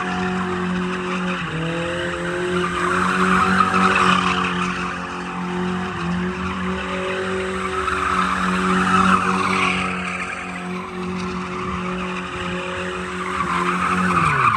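Car drifting in circles on pavement: the engine is held at high revs while the tyres squeal in waves that swell and fade as the car goes round. The revs dip briefly about one and a half seconds in and drop away near the end.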